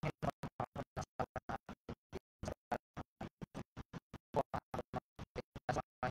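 A person's voice broken into short choppy fragments, about seven a second, with dead silence between them: the audio stream is dropping out.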